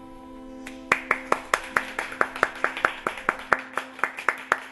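One person clapping at a steady, even pace, about five claps a second, starting about a second in, over a low held music note that fades out.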